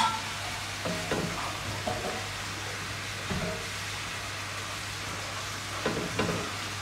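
Chicken gizzards and sliced onions sizzling in a cast-iron skillet over a high gas flame while a wooden spoon stirs them. They are being sautéed until the gizzards give up their water, before seasoning.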